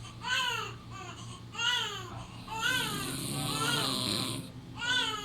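A baby's short whimpering cries: five brief whines, each rising and falling in pitch, about a second apart.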